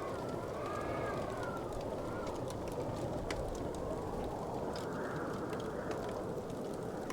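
Wood fire crackling, with scattered sharp pops and clicks over a steady low rumble, and a faint wavering whistle rising and falling in the first couple of seconds.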